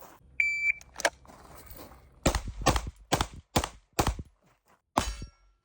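A shot timer beeps once, then gunshots: one about a second in, a quick string of five about half a second apart, and one more near the end, followed by a brief ringing tone.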